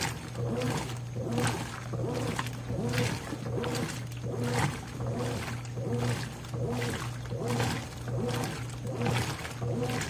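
Consul CWE13AB 13 kg top-load washing machine agitating a soapy load: the agitator swings back and forth, each stroke churning the water in a regular swish about every three-quarters of a second, over a steady motor hum.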